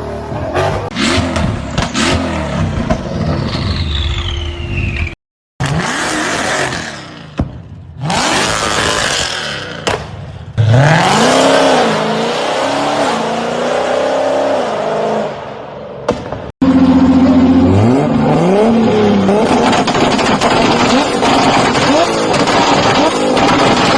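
Mercedes-AMG car engines revved repeatedly, their pitch climbing and falling with each throttle blip. It comes as a string of short clips split by sudden cuts, with sharp rev blips about ten and seventeen seconds in.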